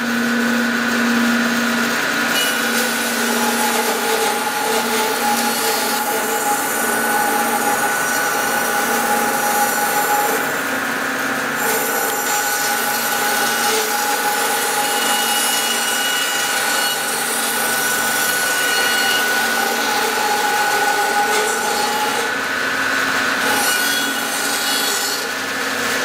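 Laguna bandsaw running with a 3/4-inch, 1.8 teeth-per-inch blade, ripping lengthwise through a cedar log in one long, steady cut with a constant motor hum. The blade cuts freely without binding.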